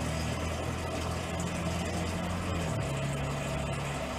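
Electric fuel pump of a GMT400 pickup running steadily, jumpered to pump stale gasoline out of the tank; a steady hum whose pitch shifts about two-thirds of the way through.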